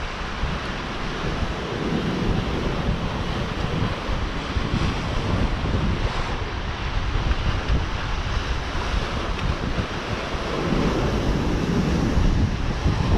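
Ocean surf breaking and washing among lava rocks, a steady churning wash that swells a little about two seconds in and again near the end, with wind buffeting the microphone throughout.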